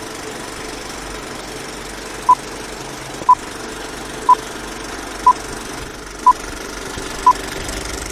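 Old-film countdown leader sound effect: a steady film-projector clatter with hiss, and a short, high beep once a second, six times, starting about two seconds in.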